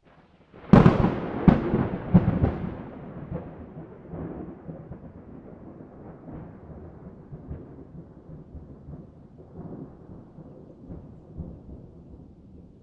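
A thunderclap: a sudden sharp crack less than a second in, two more cracks close after it, then a long rolling rumble that slowly fades.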